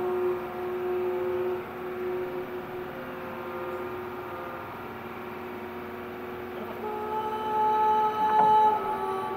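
Ambient background music of long held, horn-like notes, with a new chord entering about seven seconds in.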